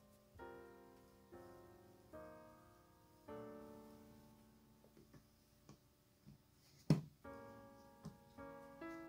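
Background piano music: slow single chords struck and left to ring out, pausing partway through. In the pause come a few soft taps and one sharp clack about seven seconds in, the loudest sound here.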